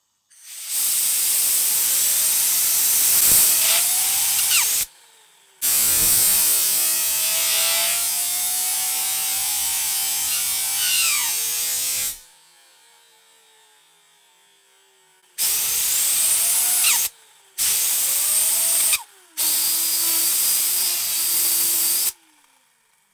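Full ceramic ball bearing spun to high speed in five loud hissing bursts that start and stop suddenly. Inside each burst a thin whine glides up in pitch as it speeds up. In the pause between the second and third bursts a faint whine falls slowly as the bearing coasts down.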